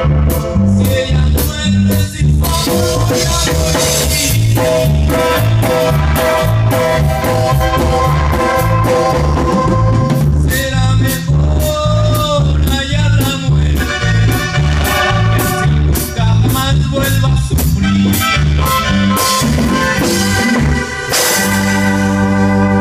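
Mexican tierra caliente band music: a bouncing bass line alternating between two notes under a steady drum beat, with melody instruments on top.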